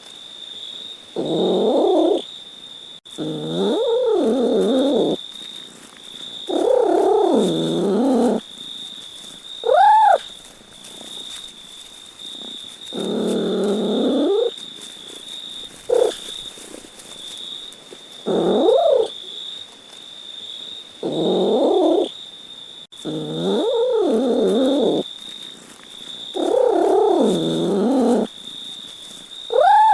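A domestic cat meowing over and over: about ten drawn-out meows that rise and fall in pitch, every two to three seconds, with a couple of short, high, upturned meows among them. A steady high-pitched tone runs underneath.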